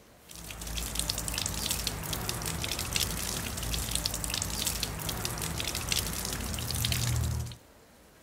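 Food sizzling and crackling as it cooks, a dense run of fine crackles that starts suddenly and cuts off abruptly after about seven seconds.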